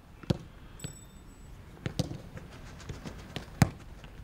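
Footballs thudding as they are kicked and caught: three sharp thuds about a second and a half apart, the last the loudest, with a few fainter knocks between.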